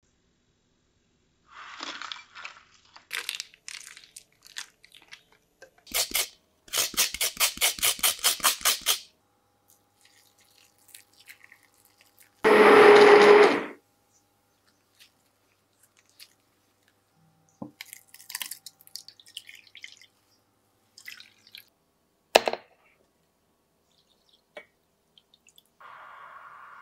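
Kitchen preparation sounds: scattered clicks and knocks, and a quick rhythmic run of strokes at about six a second. Midway, a hand-held stick blender runs for about a second and a half in a glass bowl of tapioca flour and water; this is the loudest sound. Near the end comes the steady splash of water being poured into a pot.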